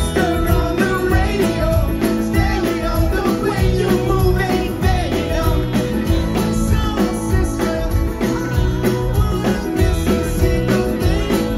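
Live rock band playing with electric guitars, keyboard, bass and drums, loud and with a steady beat.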